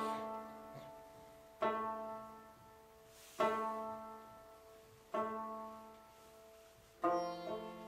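A plucked string instrument playing slow single notes, one about every one and a half to two seconds, each ringing out with a long fade; near the end a quicker run of plucked notes begins.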